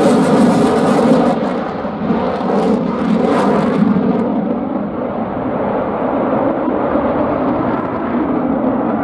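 Eurofighter Typhoon's twin EJ200 turbofans in afterburner passing overhead: loud rushing jet noise with a ragged crackle for the first four seconds or so. After that the crackle drops away and a duller steady rush continues as the jet pulls away.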